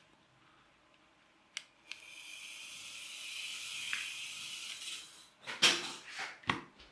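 Micro RC toy car's tiny electric motor and gears whirring with a high-pitched whine for about three seconds after a click, followed by a few sharp clicks and knocks near the end.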